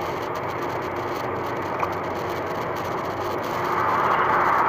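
Steady road and engine noise of a car driving at highway speed, recorded from inside the car by a dashcam. It grows louder near the end.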